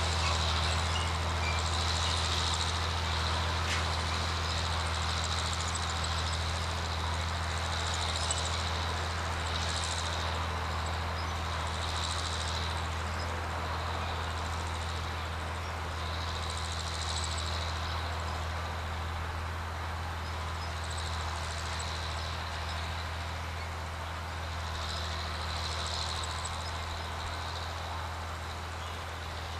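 John Deere 4010 tractor's six-cylinder engine working under load while pulling a chisel plow: a steady low drone that slowly fades as the tractor moves away.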